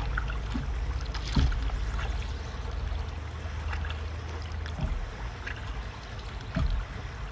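Paddle strokes from a stand-up paddleboard: the blade dipping and pulling through river water a few times, with water dripping and trickling off the paddle between strokes.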